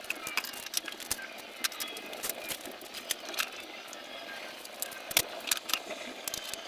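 Scattered, irregular light clicks and taps from tools and parts being handled while a riveting jig is set up.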